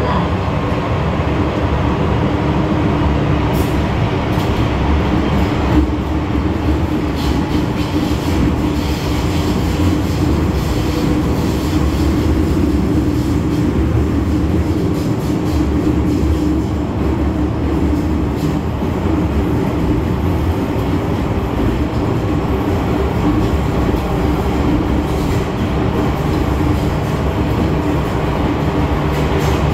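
MTR M-Train metro train running at speed through a tunnel: a steady rumble of steel wheels on rail under a steady hum, with scattered clicks from the track and a faint squeal of wheels.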